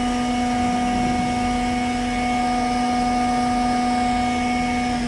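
Steady mechanical hum with a constant whine from a cargo ship's powered hatch-cover machinery as the cargo hatch opens; the whine cuts off near the end.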